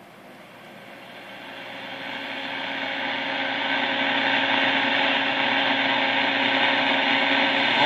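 Static hiss from a 1946 Sonora AM tube radio's speaker, swelling over the first few seconds and then holding steady, with a faint hum under it.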